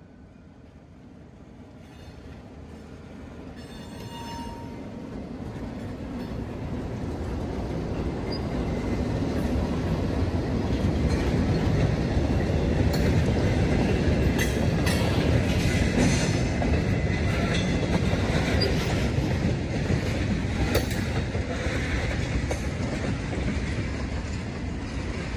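Freight train cars rolling past on steel rails over a grade crossing. A low rumble of wheels on track builds over the first ten seconds or so and stays loud, with scattered sharp clanks and clicks as the wheels cross the rail joints and crossing.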